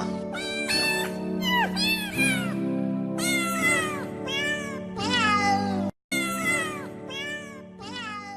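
A cat meowing again and again over background music. Each meow is short and falls in pitch. Everything drops out briefly about six seconds in.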